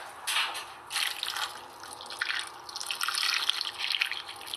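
Gravy being poured from a container over chicken leg quarters in a baking pan: an uneven stream of liquid pouring and splashing.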